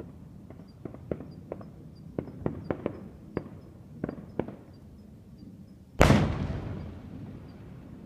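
Fireworks heard from a distance: a scatter of sharp pops and crackles through the first half, then one much louder boom about six seconds in that rumbles away over a second or so.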